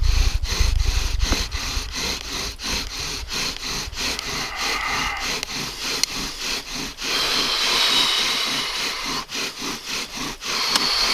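Bow drill working: a wooden spindle spun in a hearth board by fast back-and-forth bow strokes, wood rubbing on wood in an even rhythm. A high squeal comes in about halfway through. The spindle is burning in its socket in the hearth board, producing smoke before the notch is cut.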